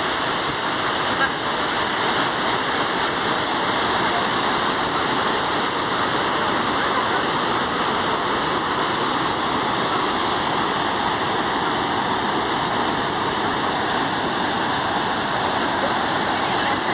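Steady rush of flowing or falling water, loud and unbroken throughout.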